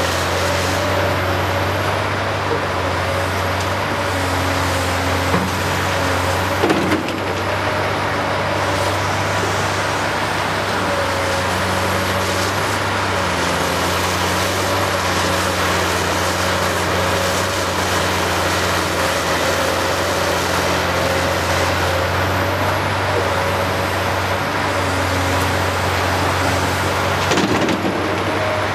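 Heavy diesel engines of a Caterpillar 385C LME hydraulic excavator and a Cat 775 dump truck running steadily while the excavator digs and swings. Rock crashes into the truck's steel dump body twice as the bucket is emptied, about seven seconds in and again near the end.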